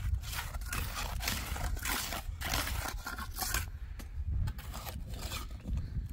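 Repeated, irregular scraping strokes, several a second, that thin out a little past halfway, over a low rumble.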